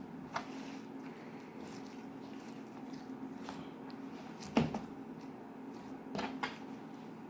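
Slime being squished and worked by hand: a few short, soft squishes and clicks, the loudest about halfway through and two more close together near the end, over a steady low hum.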